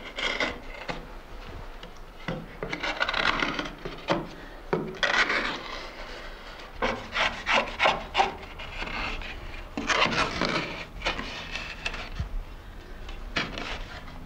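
Long-handled hollow knife shaving a soft poplar-wood clog: a series of irregular scraping cuts, some drawn out and some in quick runs of short strokes, smoothing the clog's side edges.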